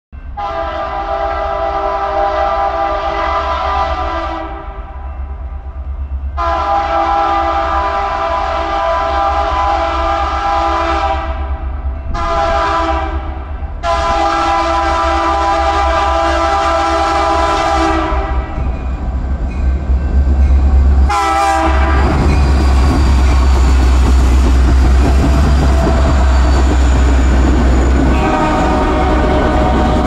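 BNSF diesel freight locomotive's horn sounding the grade-crossing warning: two long blasts, a short one and a final long one. About three seconds after the last blast the lead locomotives pass close by with a loud engine rumble and the clatter of wheels on rail.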